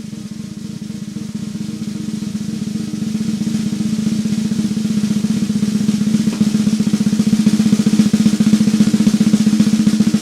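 Sonor Designer 14x5" maple-shell snare drum played as a continuous roll that swells steadily from moderate to loud, with the drum's ringing pitch held beneath the strokes.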